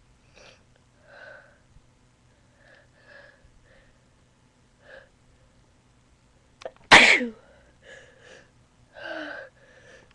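A person with a cold and allergies sneezing once, loudly and suddenly, a little after halfway through. Several short breaths come before the sneeze and a few after it.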